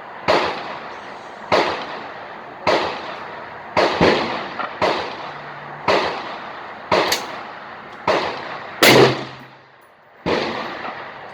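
Gunfire at a shooting range: about ten shots at roughly one a second, each trailing off. The loudest comes about nine seconds in, followed by a brief lull and one more shot.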